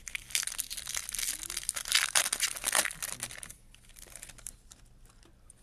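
Foil wrapper of a Topps Chrome trading-card pack being torn open and crinkled by hand. The crinkling is loud for about three and a half seconds, then dies down to light rustling.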